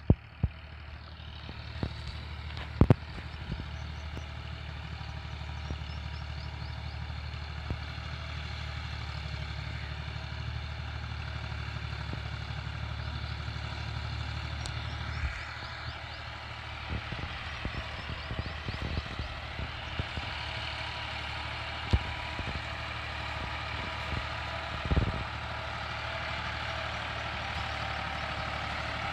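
Massey Ferguson 260 tractor's three-cylinder diesel engine running steadily under load as it pulls a heavy cultivator through dry soil, growing louder and fuller as the tractor draws nearer in the second half. A few short, sharp knocks stand out above it.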